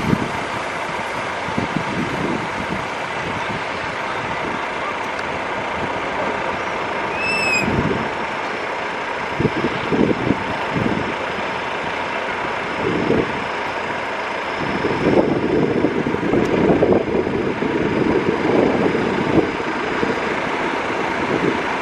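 Steady rushing roar of the climbing Airbus A330-243F freighter's jet engines, with wind buffeting the microphone in gusts in the second half. A single short high chirp about seven seconds in.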